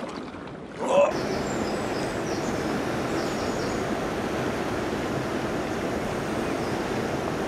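Steady rushing noise of wind on the microphone mixed with water around a kayak paddling into a headwind. It starts suddenly about a second in.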